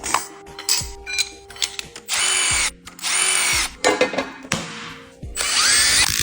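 A handheld power tool runs three times in short bursts, driving fasteners during motorcycle engine assembly; the last run rises in pitch. Sharp clicks and knocks of metal parts and tools being handled come between the runs.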